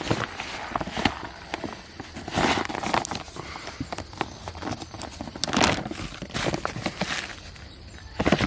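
Footsteps and rustling with many scattered clicks and crackles, the longest rustles about two and a half seconds in and again near the middle.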